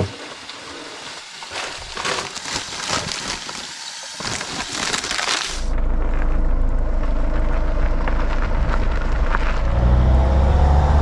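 A crackling, gusty hiss for about five and a half seconds, then an abrupt change to the steady drone of a camper van's engine and road noise while driving.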